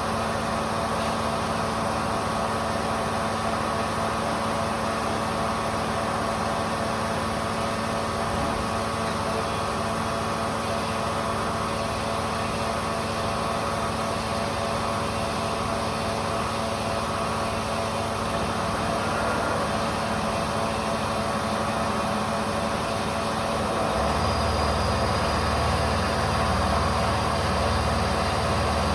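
Metalworking shop machinery running steadily, a constant mechanical hum with several fixed tones. About 24 s in, a deeper engine-like rumble and a thin high whine join and it gets a little louder.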